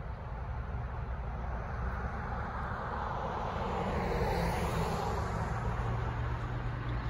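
A road vehicle passing by, its noise swelling to a peak about four seconds in and then fading, over a steady low traffic rumble.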